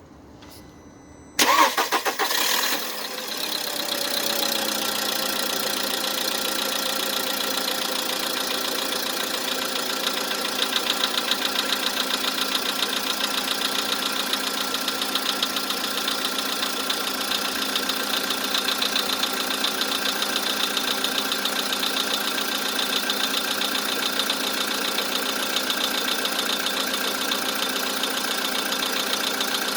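VW Polo sedan engine cranked over by the starter for about a second, catching and settling into a cold idle, its pitch dropping over the first few seconds. A fast, even knocking runs through the idle, the cold-start knock that is the engine's fault.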